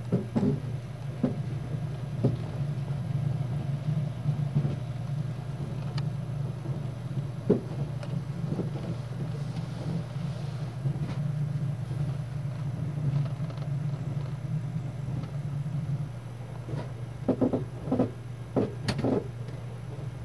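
Passenger coach of a moving train heard from inside a sleeper compartment: a steady low running rumble from the wheels and rails, with scattered knocks and a quick cluster of several knocks near the end.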